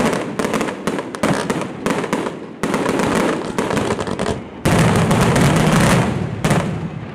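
Fireworks display: a rapid, unbroken barrage of shell bursts and crackling. A louder, denser volley sets in a little past halfway and tapers off near the end.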